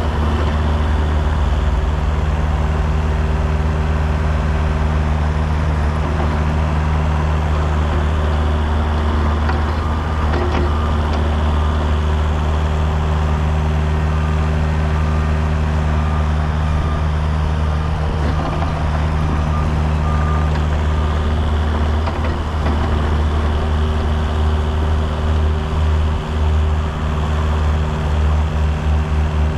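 Kubota U55 mini excavator's diesel engine running steadily under working load, wavering near the end. A reversing alarm beeps repeatedly from about a third of the way in until about three quarters through, and starts again at the very end.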